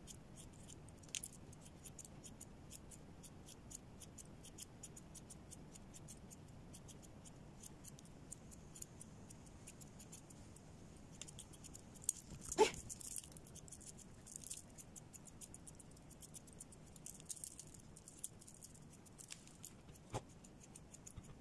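Faint, rapid metallic clicking of small grooming scissors snipping a dog's fur, mixed with the clink of its chain lead, and one louder short sound about twelve seconds in.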